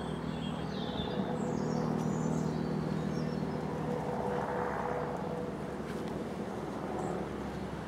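Cessna 172S Skyhawk SP's four-cylinder Lycoming piston engine and propeller droning steadily in flight. A few bird chirps come in about one to two seconds in.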